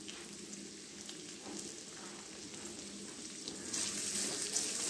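Sliced onions, garlic and peppercorns sizzling in butter in a hammered steel wok, with the odd click and scrape of a spatula stirring them. The sizzle grows louder about three and a half seconds in.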